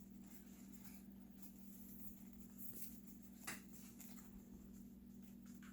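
Near silence over a steady low hum, with faint rustling of paper photo cards being handled and one brief tap or click about three and a half seconds in.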